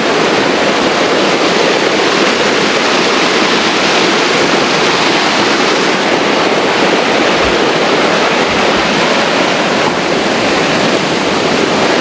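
Fast water rushing down a narrow stone-lined channel in a steady, loud rush.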